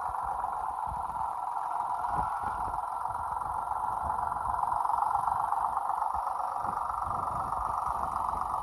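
Small tractor's engine running steadily as it pulls a plastic mulch layer down the row.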